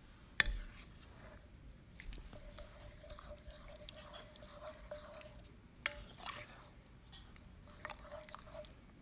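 Wooden spoon stirring a broth-thinned roux in an enamelled cast-iron Dutch oven: soft sloshing and scraping, with a sharp knock of the spoon against the pot about half a second in and another near six seconds. A faint steady hum runs behind it.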